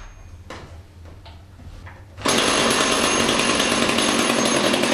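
Quiet for about two seconds with a few faint knocks, then the chainsaw powering a home-built marble launcher starts up abruptly at full speed and runs loudly, driving the launcher's chain mechanism.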